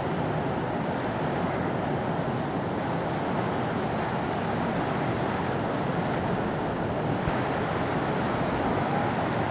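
Fast-flowing floodwater rushing steadily and spilling over a low ledge in a continuous wash of water noise.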